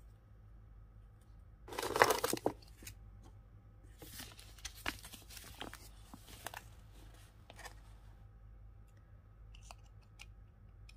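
Paper packaging of a toy set crinkling and rustling as it is handled, loudest once about two seconds in, with a few light plastic clicks near the end.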